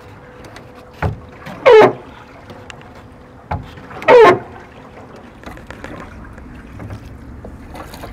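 Wooden oar of a foot-rowed canal boat creaking at its pivot with each stroke: a short knock, then under a second later a loud squeal falling in pitch. This happens twice, about two and a half seconds apart, with only a low steady hiss over the second half.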